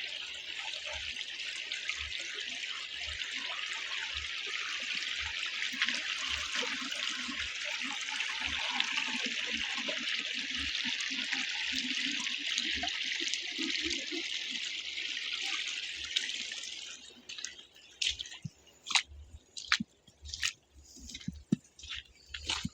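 Puget Creek running, a steady rush of flowing water, which falls away about 17 seconds in. After that, irregular crunching and squishing footsteps in snow.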